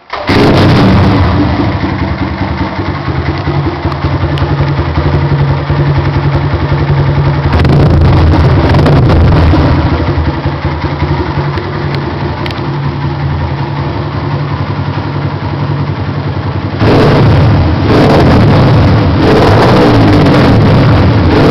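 Honda CG 150 Titan's single-cylinder four-stroke engine running loud through an aftermarket Roncar aluminium RS exhaust. It cuts in abruptly and is revved, getting louder about seven seconds in and again near the end.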